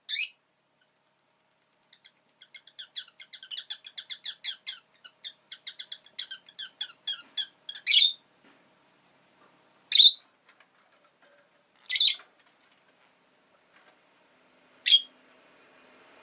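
Pet rosy-faced lovebirds calling: a fast run of short chattering chirps, then single loud, sharp shrieking calls about every two seconds.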